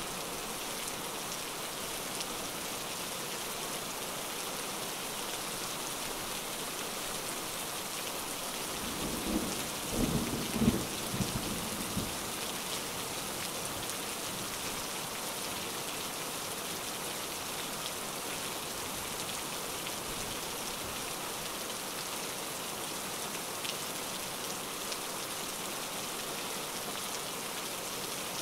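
Steady rain falling, with a rumble of thunder lasting a few seconds about nine seconds in.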